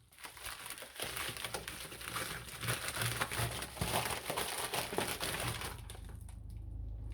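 Packaging crinkling and rustling as hands rummage through a parcel, with many small crackles for about six seconds before it settles.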